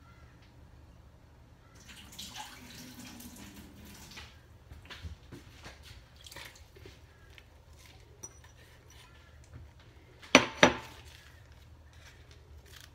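Kitchen handling sounds: faint rustles and small clinks as herbs are tipped from a small bowl into a stainless steel stock pot. About ten seconds in come two sharp knocks close together.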